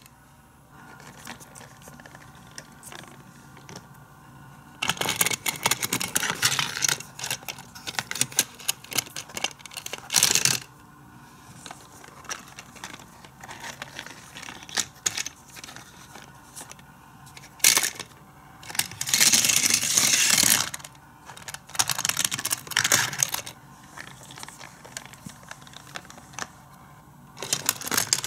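Hard plastic toy playset being handled, with a small die-cast toy fire truck rattling along its plastic track. Clicks come throughout, with several louder bursts of clattering.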